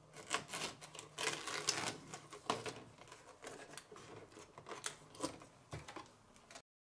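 Cut fabric pieces and tape being peeled off a sticky cutting-machine mat and handled: an irregular run of crackling rustles and light clicks. It cuts off abruptly near the end.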